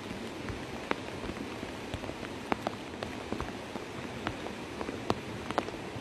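Steady rain falling on a wet road and floodwater, with scattered louder drop ticks.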